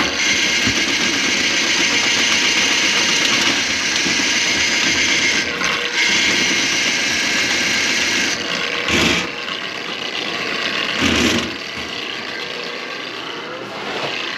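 Motorized drain-cleaning machine running steadily, working a cable through a drain line plugged with grease. There are two brief louder surges about two-thirds of the way through, and it runs a little quieter after them.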